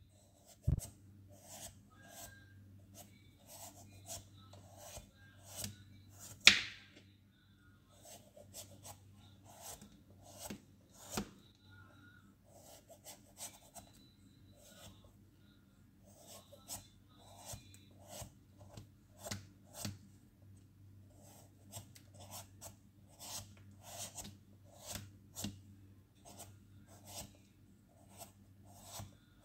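A knife pares the skin off a papaya in short scraping strokes, irregular, about one a second. A sharper knock comes about six seconds in.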